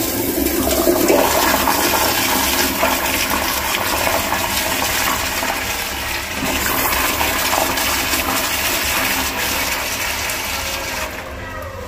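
Crane Plumbing Whirlton toilet flushing: water rushing down the bowl, then running in as the bowl refills, growing quieter near the end.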